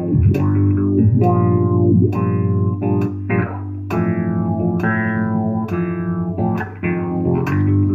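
Looped electric bass line played through a filter effect pedal set to high-pass, the filter's oscillation sweeping the upper tone of the repeating notes.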